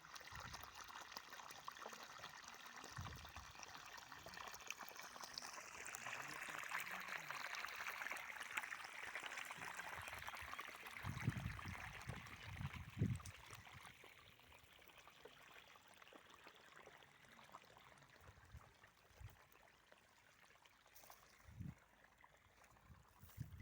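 Water running over a small waterfall: a steady rush that grows stronger about a quarter of the way in, then drops to a fainter flow a little past halfway. A few low thumps come in the middle.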